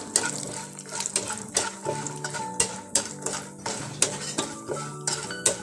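A spatula scraping and knocking against a non-stick pan as peanuts are stirred and roasted in a little oil, in sharp, irregular strokes a few times a second.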